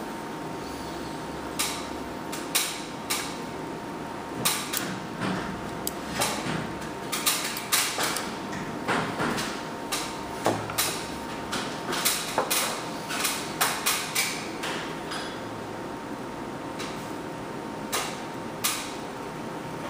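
Handling noise from a metal handheld wireless microphone: many irregular clicks, taps and knocks as it is gripped, turned over and set down on a wooden table.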